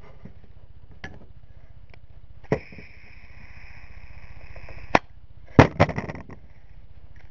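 Green gas hissing from the can's nozzle into a 1911 airsoft pistol's magazine fill valve for about two and a half seconds, starting and stopping with a sharp click, with a faint whistling note in the hiss. A quick run of sharp clicks and knocks follows as the can and gun are handled.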